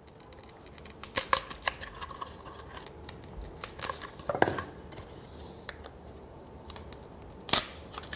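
Awl being worked through the wall of a chime tube to make a hole: scattered scrapes and small clicks, with two louder crunches about four and seven and a half seconds in.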